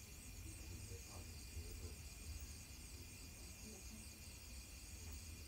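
A steady, high-pitched chorus of night insects, with a low rumble underneath; no shot is fired.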